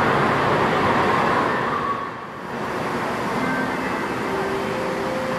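Steady noisy din of an indoor water park: rushing water and a hubbub of many people. It dips briefly about two seconds in, then continues as waves washing and breaking through a shallow wave pool, with faint distant voices.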